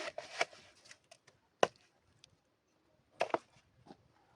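Several sharp knocks at uneven intervals, the loudest about a second and a half in, with a quick cluster of them about three seconds in.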